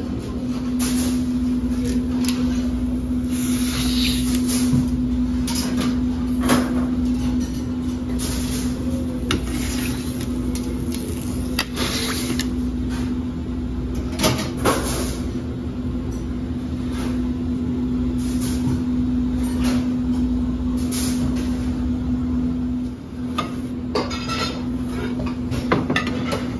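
Restaurant kitchen working noise: a steady droning hum over a low rumble, with scattered knocks and clatters. The hum drops out for a moment near the end.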